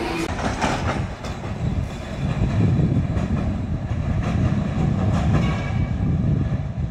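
TECO Line electric streetcar rolling past on its rails: a low rumble with scattered clicks from the wheels on the track.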